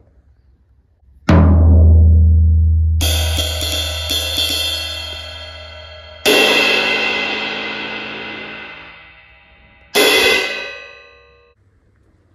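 Drum kit struck one piece at a time: about a second in, a low drum hit booms and rings for several seconds. Then three cymbal strikes come roughly three seconds apart, each left to ring out, the last dying away soonest.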